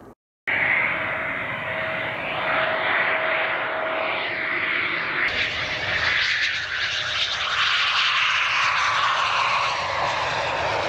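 Jet noise of a Eurofighter Typhoon's twin engines as it lands and rolls along the runway. It cuts in loud after a brief dropout just after the start, with a steady whine through the first half. About five seconds in it turns brighter and fuller as the jet passes closer, with falling pitch sweeps.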